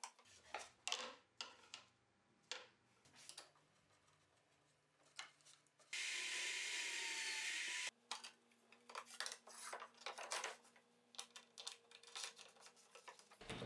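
Scattered light clicks and knocks of hand work on plywood, broken about six seconds in by an electric drill held in a drill stand boring into a plywood piece for about two seconds, the loudest sound. Afterwards come more light wooden knocks as a wooden star knob is turned and the plywood guide parts are handled.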